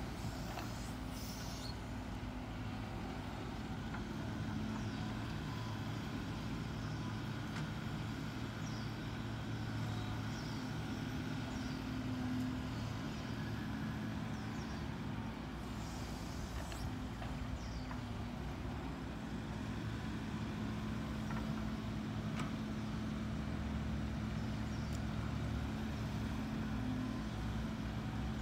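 Heavy diesel engine of construction machinery, an excavator or dump truck, running steadily for the whole stretch with small rises and falls in load. A few brief clanks come through, around the start, about halfway and about two-thirds of the way in.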